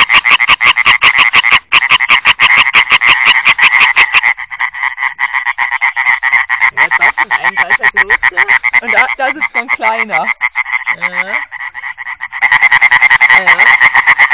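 European tree frogs calling: a rapid run of short, sharp, evenly spaced croaks. One loud nearby caller stops about four seconds in, leaving fainter calling. Another loud caller starts up close again near the end.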